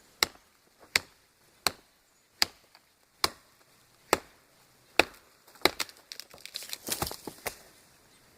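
Tomahawk chopping into a standing tree trunk, eight sharp blows at a little under one a second. Then comes a quick run of cracks with a rustling crash as the trunk splinters and the tree gives way.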